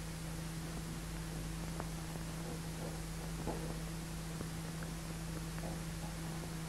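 Steady hiss with a low hum and a few faint ticks: the background noise of an old film soundtrack.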